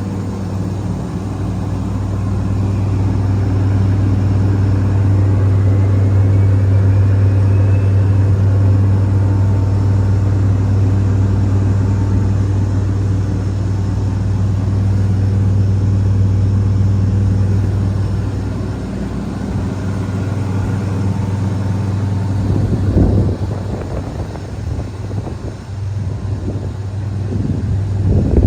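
Diesel engine of a Wirtgen W100F asphalt milling machine running steadily with a deep, even drone. It grows a little louder over the first few seconds and eases off about two-thirds of the way through, with a few short low thumps near the end.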